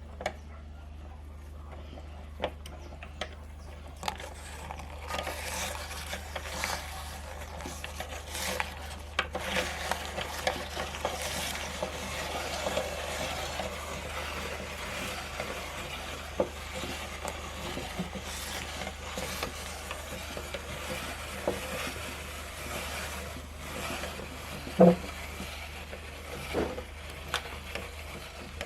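Meat grinder crushing Oreo cookies: a few separate clicks, then from about five seconds in a continuous crackling crunch peppered with sharp cracks, with one loud knock near the end.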